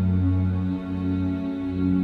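Calm ambient new-age music of sustained, held low tones.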